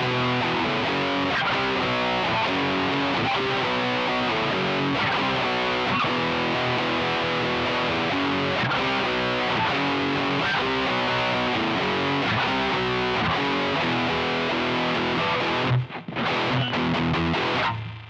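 Distorted electric guitar, an Epiphone Special SG recorded direct over USB from a Fender Mustang MINI modelling amp on a metal setting, playing a continuous heavy riff. About 16 seconds in it breaks off into short clipped stabs with silent gaps between them.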